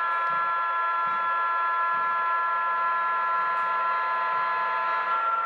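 DCC sound-decoder horn of an HO-scale Southern Pacific diesel locomotive model, one long held chord of several notes sounded for a grade crossing, cutting off near the end. The decoder's diesel engine sound hums underneath.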